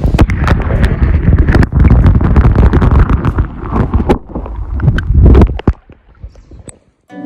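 Loud, uneven low rumbling and buffeting on the microphone, with scattered knocks, fading out near the end.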